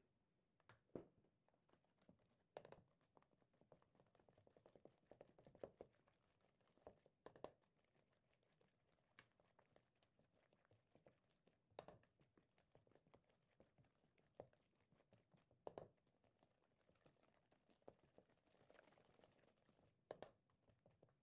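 Faint scraping and clicking of a wire balloon whisk working flour into thick butter-cookie dough in a stainless steel bowl, with about half a dozen sharper taps of the wires against the bowl.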